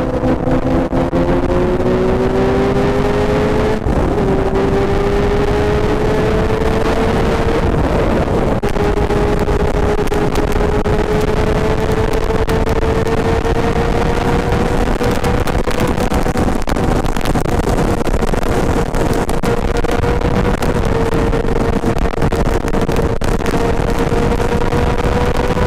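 Motorcycle engine pulling at highway speed under a heavy rush of wind, its steady drone slowly rising in pitch. About four seconds in it breaks briefly and drops in pitch as it shifts up a gear.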